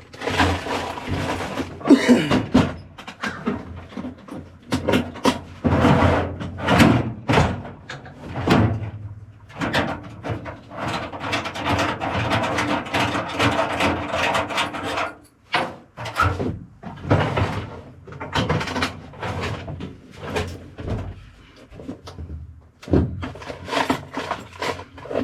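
Hands-on work with tools and small parts: a string of knocks, clicks and clatters, irregular and close by.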